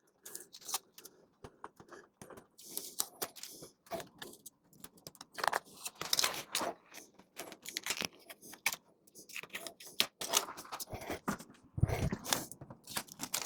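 Masking tape being peeled off a painted door frame: irregular crackling, tearing and scraping, with a low thump about twelve seconds in.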